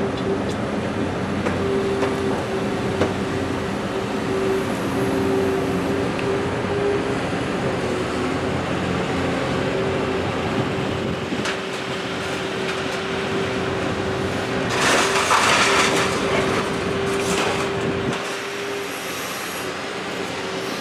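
Scrap-yard grapple crane running as it lifts a refrigerator out of a pickup bed, with a steady whine from its machinery. About fifteen seconds in there is a loud, harsh clatter lasting a second or so.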